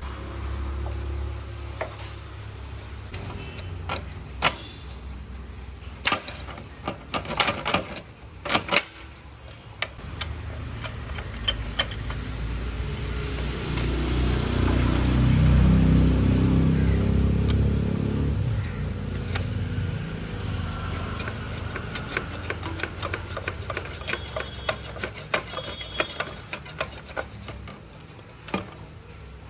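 Irregular clicking, tapping and clinking of hand tools on small metal parts, with a low rumble that swells and fades about halfway through.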